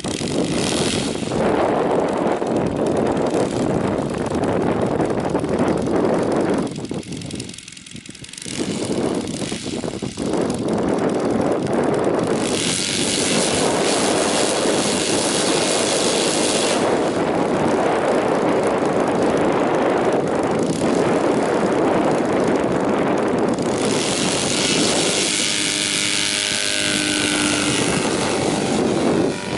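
Saito FG 57 four-stroke petrol engine and propeller of a large radio-controlled RF-4 model motorglider running steadily. The sound dips briefly about eight seconds in and grows harsher and brighter twice later on.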